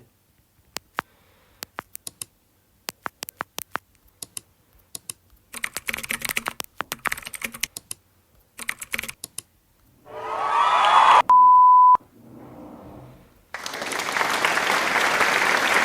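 A run of short sound-effect previews from a video editor's library. First come keyboard-typing clicks, sparse and then dense. Then a swirling effect, a steady one-tone beep of under a second, and near the end an even hiss like applause.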